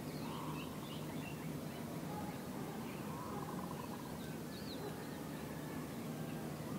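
Outdoor ambience: a steady low hum with scattered short, high bird chirps, a few near the start and a pair about four and a half seconds in.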